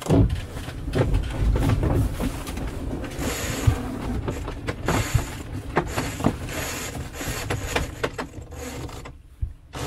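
Cockpit sheet winch on a small sailing yacht clicking as a sheet is hauled in during a tack, with irregular knocks and rattles from lines and gear over a low wind rumble.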